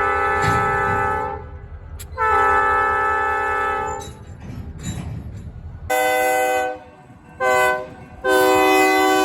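Diesel locomotive air horn sounding the grade-crossing signal: long, long, short, then a long blast that starts near the end and is held. A low rumble runs under the first few seconds and then drops away.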